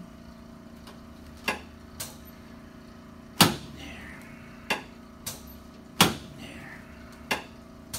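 Chiropractic adjusting table clacking sharply under a series of thrusts on a patient lying face down, about eight knocks with the two loudest about three and a half and six seconds in, over a steady low hum.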